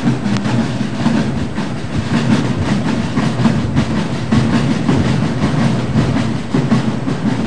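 Heavy rain pouring down: a steady, dense rush with irregular spatters and splashes.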